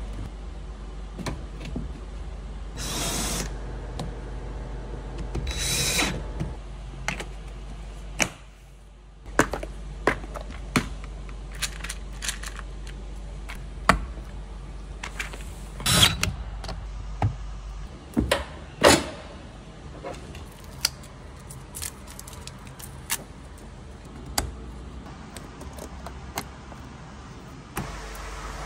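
Car interior parts being handled and refitted: irregular sharp clicks and knocks of plastic trim, clips and panels, with two short noisy bursts about three and six seconds in.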